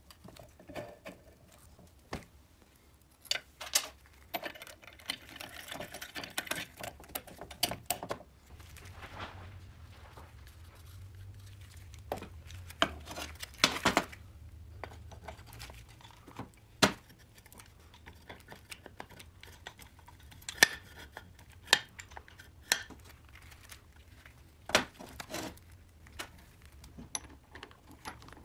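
Steel gears and shafts being handled and fitted into an aluminium engine crankcase: scattered sharp metal clicks and knocks against the case, with quieter handling noise between them.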